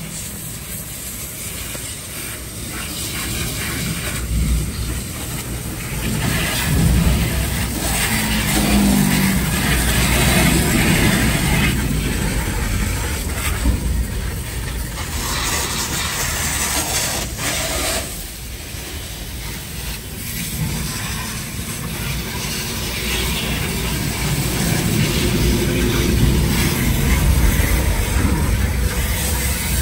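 A car running: a low rumble with hiss, swelling and easing in loudness every few seconds.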